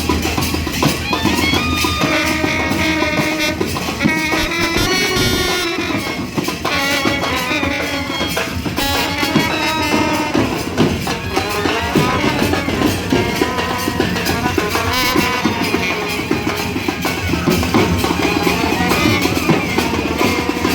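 Indian band-baja brass band playing: a melody line over dense, steady drumming.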